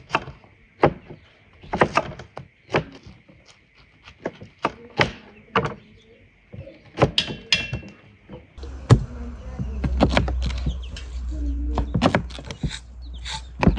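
A series of irregular, sharp knocks and thunks, with a steady low rumble joining them from about eight seconds in.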